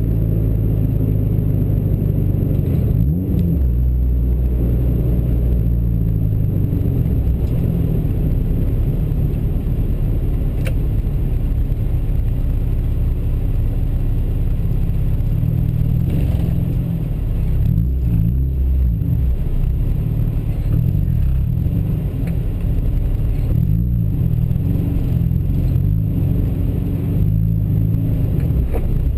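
A road vehicle's engine running steadily while driving in traffic, with road and wind noise. Its low note shifts a few times as the speed changes.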